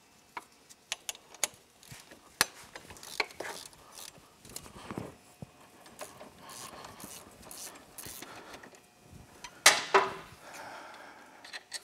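Socket ratchet clicking as the 15 mm bolts holding the brake caliper carrier to the ATV's front hub are undone, with scattered metallic clicks and a sharp clank about ten seconds in.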